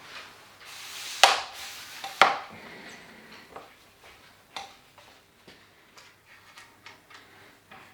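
Handling noise of hard gear: two sharp knocks about a second apart, then a string of lighter clicks and taps.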